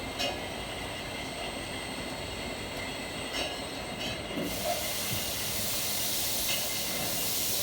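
Bourbon bottling line machinery running, with a few short clinks. A loud steady hiss sets in about halfway through.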